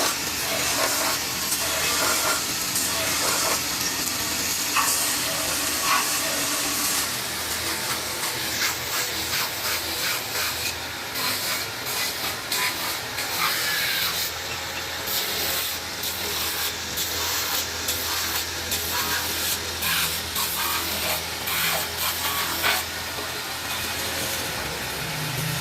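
Metalworking noise while making large metal kettles: a steady hiss, strongest in the first few seconds, over a low hum, with many scattered clicks and knocks through the middle.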